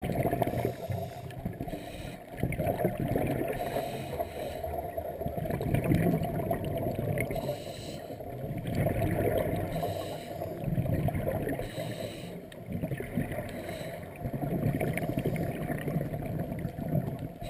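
Scuba divers' exhaled breath bubbling out of their regulators underwater: muffled, rushing bubbling that swells and fades in surges every couple of seconds with each breath.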